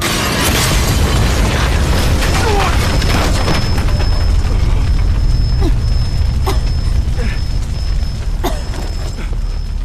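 A clay jar of fire oil bursting into flame with a sudden boom, followed by fire burning with a steady low rumble and scattered crackles.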